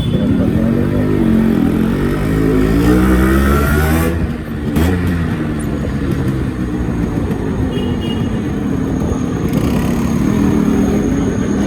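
Yamaha RX two-stroke single-cylinder motorcycle engine running, its pitch climbing as it revs over the first few seconds, dropping sharply about four seconds in, then running on fairly steadily.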